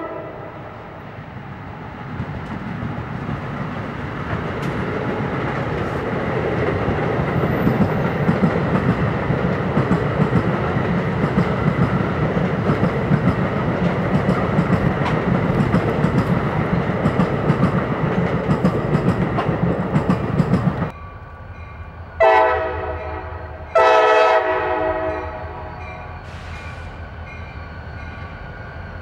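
NJ Transit multilevel commuter train passing close by: a steady rumble of wheels on rail with clicks over the rail joints. About 21 s in it gives way to a Conrail freight train's diesel locomotive sounding two horn blasts, then a low engine rumble as it approaches.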